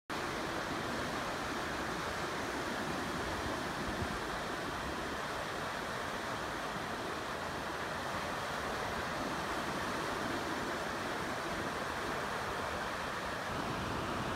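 Ocean surf breaking and washing up a sandy beach: a steady, even rushing of waves.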